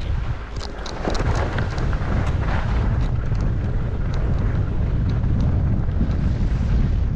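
Wind rushing and buffeting the microphone while skiing downhill, with skis hissing and scraping over the snow in swells as they turn.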